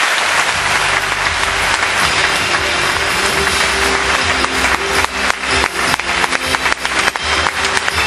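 A large audience applauds while loud music with a steady bass starts up underneath. In the second half the applause breaks into more distinct individual claps.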